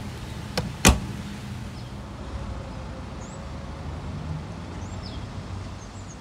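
Two sharp clicks about a third of a second apart, the second louder: the car's plastic fuel filler flap being worked, over a steady low background hum.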